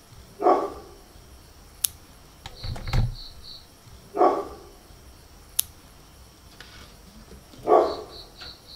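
A pet nail clipper snips a cat's claw tips with two sharp clicks, while the cat gives several short, low cries.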